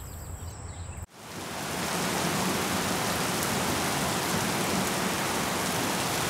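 Quiet outdoor ambience with a thin high steady tone, cut off abruptly about a second in. Then steady rain fades up within the next second to an even hiss and holds.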